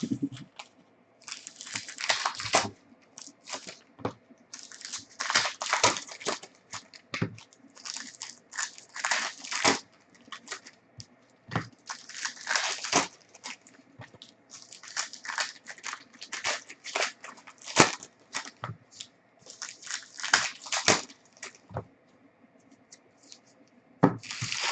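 Trading card pack wrappers being torn open and crinkled, in irregular bursts of tearing and rustling about a second long.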